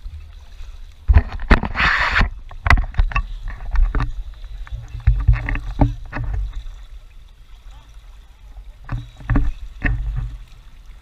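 Double-bladed paddle strokes splashing and dripping beside an inflatable kayak, with irregular knocks and thumps, muffled through a waterproof camera housing. The most active stretch is the first half, with a loud splash about two seconds in.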